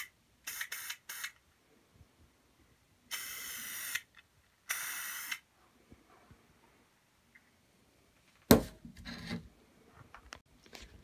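Aerosol can of Krylon white spray paint hissing: three quick puffs, then two longer sprays of about a second each. A few seconds later comes a single sharp knock and a brief clatter.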